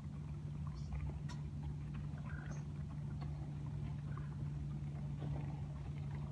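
A steady low mechanical hum with rumble beneath it, with faint scattered chirps and clicks over it.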